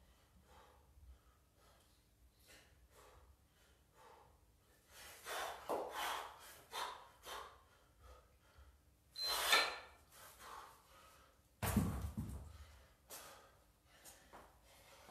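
A man breathing hard and fast through a kettlebell double half-snatch set, with short rapid breaths and a few louder gasping exhales. The last loud exhale, near the end, comes with a low thud.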